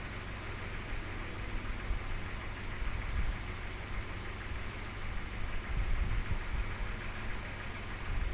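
1990 Volvo 240 DL engine idling steadily, heard from outside the car, with an even hiss in the background.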